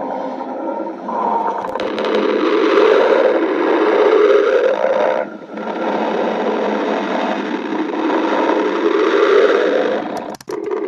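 Stomach growling, heard close up: a long, loud rumbling run, broken by two short pauses, about five seconds in and again near the end.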